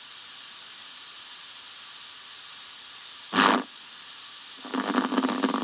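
Small loudspeaker of a homemade FM receiver giving a steady hiss of static in a gap in a radio news broadcast. A brief spoken word comes through about three and a half seconds in, and the newsreader's voice resumes near the end.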